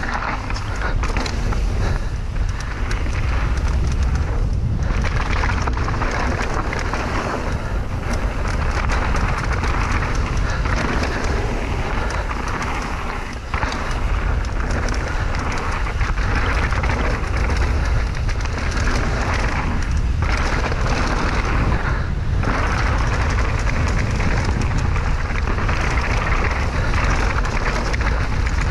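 Wind buffeting the microphone over the rumble of mountain bike tyres rolling fast on a loose dirt trail, with rattles from the bike. The noise is loud and steady, with a few brief dips.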